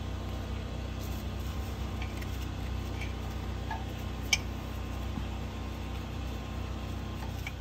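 Hand tools working on the oil pickup tube bolt under the car: faint scraping and ticking, with one sharp metal click about four seconds in, over a steady low hum.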